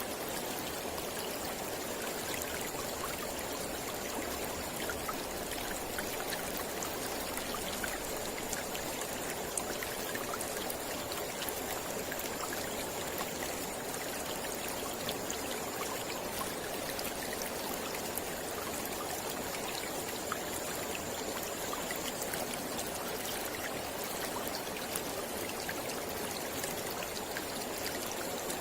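Mountain river flowing steadily: a continuous rush of water with many small splashes and trickles through it.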